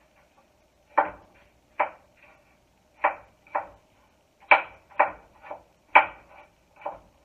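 Kitchen knife chopping peeled apple on a wooden cutting board: about ten sharp knocks at an uneven pace, starting about a second in.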